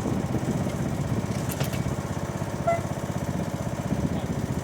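Small engine running at idle, a steady rapid pulse, with a brief click about a second and a half in.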